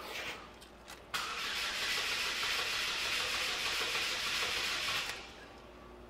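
2006 Saturn ION's 2.2-litre four-cylinder engine cranked over by the starter for about four seconds, with its injector disconnected for an in-cylinder pressure and starter-current test; it starts suddenly about a second in and stops about five seconds in.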